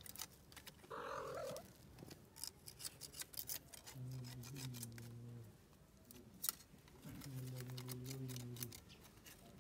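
Light crackling and rustling as a cat and her kitten scuffle over dry leaves and stony ground. Two long, low, steady hums come in about four and seven seconds in.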